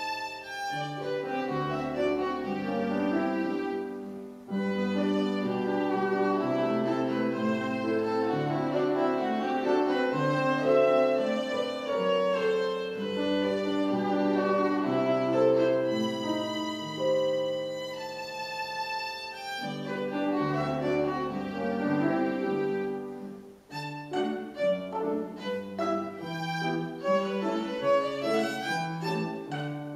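A child playing the violin in a classical recital piece, with piano accompaniment underneath. Flowing melodic lines give way to short, detached notes in the last few seconds.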